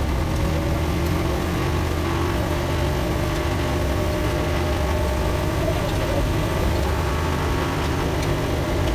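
Heavy engine idling steadily, an even low drone with no change in speed.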